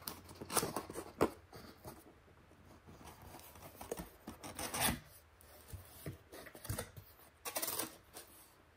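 Cardboard box being opened by hand: fingers rubbing and scraping on the cardboard, a perforated tab torn open, and the lid flaps pulled back, in a string of short scratchy tearing and rubbing sounds.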